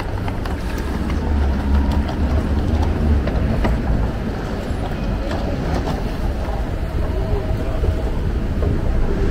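Airport terminal hall ambience: a steady low rumble with faint distant voices and a few light clicks.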